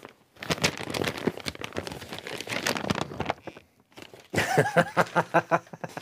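Gift wrapping paper crinkling and rustling as a present is unwrapped by hand. Near the end, a voice laughs in short bursts.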